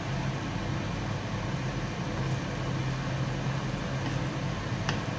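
A kitchen fan running: a steady low hum with a hiss. One faint click near the end.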